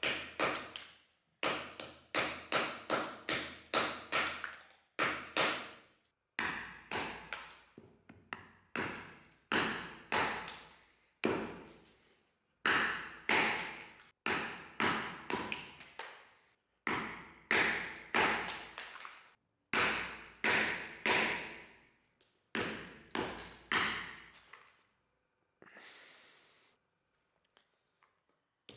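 Forged mason's hammer striking a stone block on a wooden stump, chipping it down: sharp blows, each with a short ring, in runs of several strikes about two a second with brief pauses between runs.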